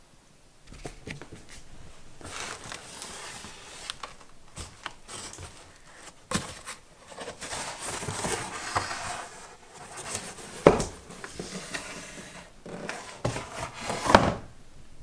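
Cardboard boxes being handled on a wooden floor: irregular scraping and rustling with scattered clicks, and two sharp knocks, one just before 11 seconds in and one near the end.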